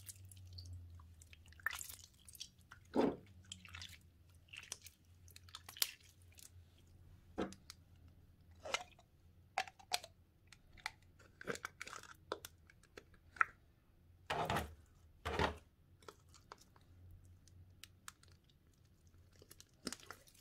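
Faint wet squelches and clicks of pink slime being squeezed and stretched by hand, louder a few times, around three seconds in and twice near three quarters through. Later there are light taps and handling noises from the clear plastic slime cup.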